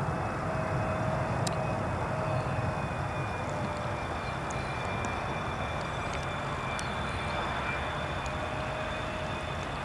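Boeing 777 airliner on final approach, its twin engines running at approach power: a steady rush with a faint steady whine over it.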